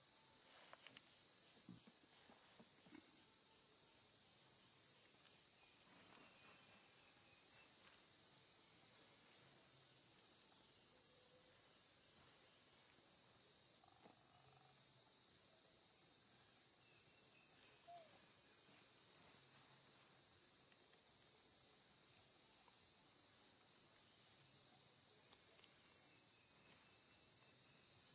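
A steady, high-pitched drone of an insect chorus, with a few faint rustles now and then.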